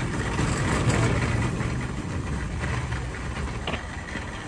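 Metal shopping cart rolling over asphalt with a person riding in it, its wheels and wire basket rumbling and rattling. The rumble is loudest in the first second or two and eases off after that.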